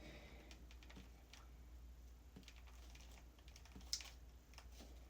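Faint scattered clicks and light handling noises as packaging on a new hair dryer brush is undone, with one sharper click about four seconds in, over a low steady hum.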